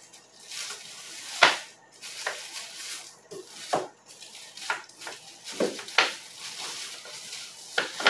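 Frozen sacolés (ice pops in plastic bags) being picked out of a freezer drawer and handled: plastic rustling with a string of sharp clacks and knocks, the loudest about one and a half seconds in.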